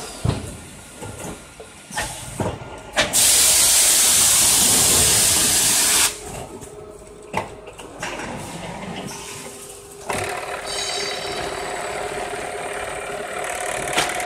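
Automatic bag-packing machine at work. It starts with a few clicks. About three seconds in comes a loud blast of compressed-air hiss lasting some three seconds, as its pneumatics vent. From about ten seconds in, the conveyor and bag-sewing head run with a steady hum.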